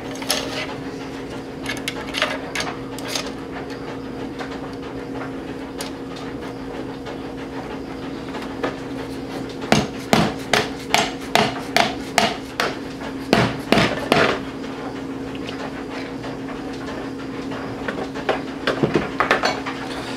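Sharp metal knocks from a screwdriver used as a chisel, wedged between the cast-iron turbine housing and the center section of a Garrett turbocharger to break the stuck housing loose. A few scattered knocks come first, then a run of about ten at roughly two a second, then a few more near the end.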